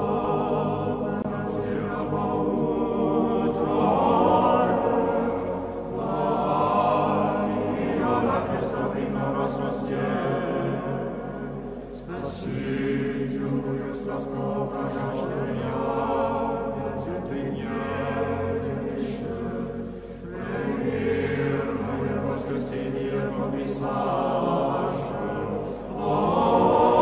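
Orthodox church choir chanting unaccompanied liturgical singing in long, sustained phrases with short breaks between them.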